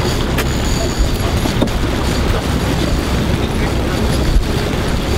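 Fishing boat's engine running steadily, with water rushing along the hull and wind buffeting the microphone.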